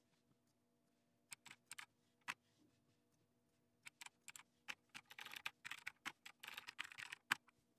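Faint typing on a computer keyboard. A few scattered keystrokes come first, then a quicker run of keys in the second half as shell commands are typed in.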